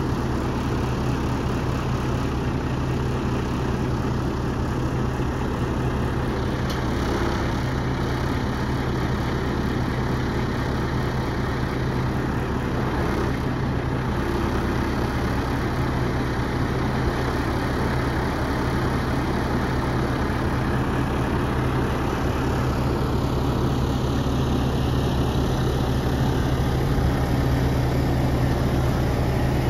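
Diesel engine of a Renault Premium truck idling steadily, a constant low hum that grows slightly louder near the end.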